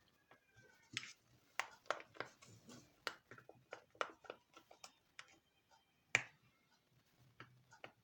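Irregular light clicks and taps of a bowl, utensils and containers being handled while making slime, the sharpest tap about six seconds in.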